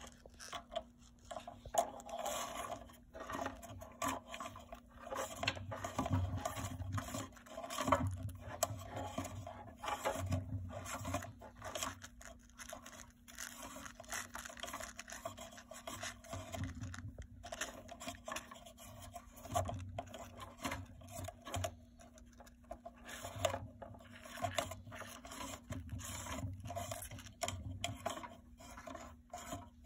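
Irregular scraping and rubbing as a fountain pump's power cord is handled and pushed against the concrete fountain base, with low knocks now and then and a faint steady hum underneath.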